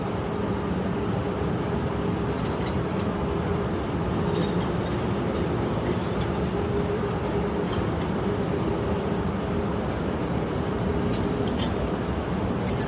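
London Underground train at the platform, running with a steady hum and a constant rumble, with a few faint high squeaks and clicks.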